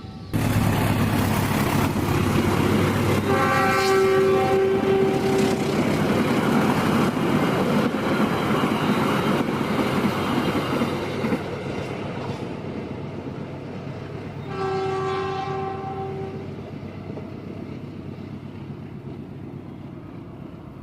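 Diesel-hauled train passing close at speed: a loud rush that starts suddenly and fades away after about eleven seconds. The train horn sounds twice, a blast of a couple of seconds about three seconds in and another about fourteen seconds in as the train recedes.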